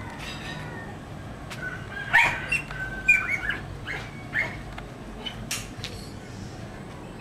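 A series of short, sharp animal calls, about ten in a few seconds, the loudest about two seconds in.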